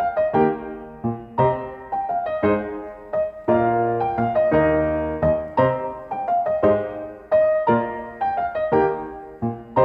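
Background piano music: gentle struck notes and chords, a few a second, each ringing and fading, with a longer held chord near the middle.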